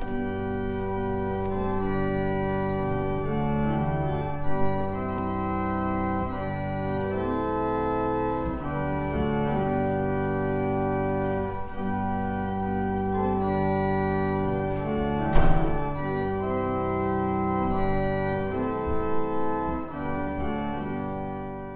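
Organ playing slow, held chords that change every second or two, in the manner of a hymn prelude. A single brief knock sounds about two thirds of the way through, and the music stops right at the end.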